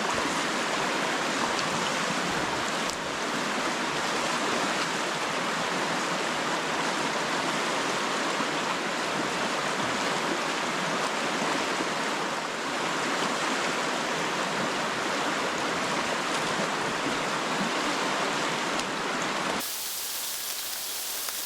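River water rushing, a steady loud noise. About a second and a half before the end it switches abruptly to a thinner hiss.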